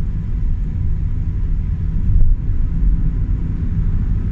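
Steady low rumble of a car on the move, engine and road noise with a faint constant hum.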